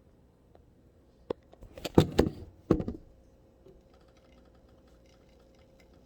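A sharp click, then a quick clatter of knocks lasting about a second, as kitchen items are handled and set down on a counter while the steeped coffee is finished off.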